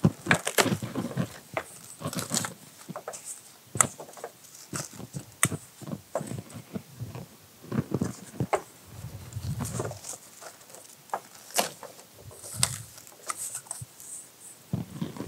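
Plastic cling film being pulled from its box and stretched over stainless steel bowls, making irregular crinkling and crackling with a few low thuds as the bowls are handled.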